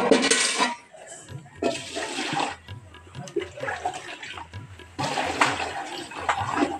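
Water scooped with a steel mug from a plastic drum and poured into a metal bucket, splashing in three separate pours.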